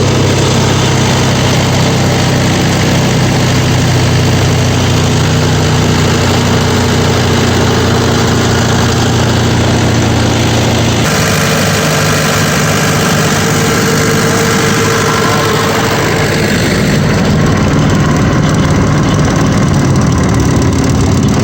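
Vermeer BC1000XL brush chipper running steadily under its engine. Its tone changes abruptly about halfway through.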